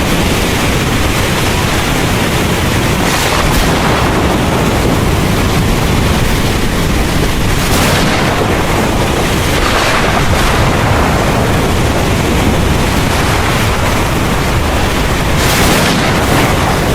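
Heavy rain pouring steadily over a constant low rumble, with a few brief hissing surges.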